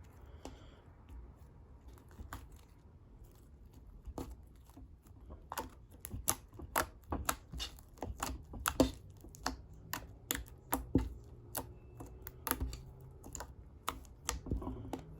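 Glue slime activated with laundry detergent being squeezed and stretched by hand, making irregular sharp clicks and pops. The clicks are sparse at first and come thick and fast from about a third of the way in.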